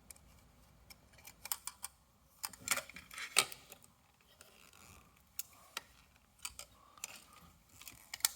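Faint, scattered clicks and taps of small plastic parts as the black plastic sensor box of an optical smoke detector is worked open at its catches, with a quick run of sharper clicks about three seconds in.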